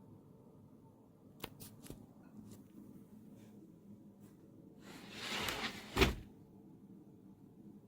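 A few light clicks, then a sliding rub that builds for about a second and ends in a sharp knock, like something being slid shut.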